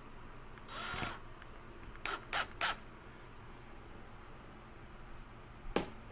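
Handling noises at a workbench: a short scraping rasp about a second in, three quick rasps around two seconds in, then a sharp click near the end.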